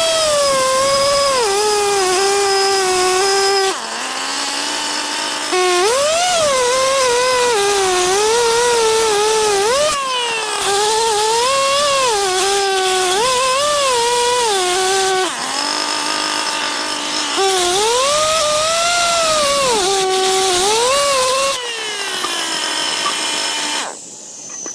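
Power tool motor whining under varying load, its pitch climbing and sagging as it bites and frees up. It eases off to a lower pitch several times and winds down to a stop near the end.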